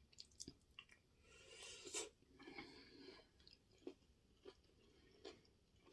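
Faint close-up chewing of food, with small wet mouth clicks and a few light crunches; the chewing grows a little louder for a couple of seconds about a second in.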